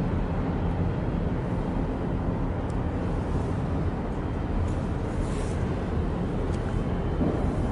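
Steady low rumble of outdoor background noise, with no distinct engine note or event standing out.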